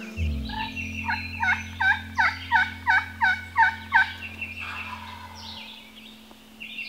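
Turkey yelping: a run of about nine evenly spaced yelps over some three seconds.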